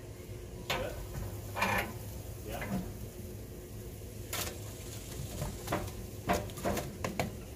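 A split log being laid into the steel firebox of an offset smoker, knocking several times against the grate and firebox walls as it is set on the coals.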